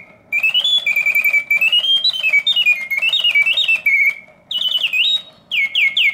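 Vintage Reuge double singing bird cage automaton playing its mechanical birdsong: a bellows-driven whistle warbling in fast trills, with pitch glides rising and falling, broken by brief pauses between phrases.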